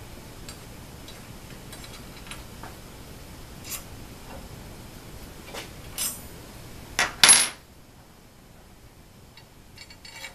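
A black metal bolt dropped and clattering onto the router's base board, two quick hits and then a short rattle with a brief high metallic ring, about seven seconds in. Before it, light scattered clicks of a hex key and bolts against the aluminium frame.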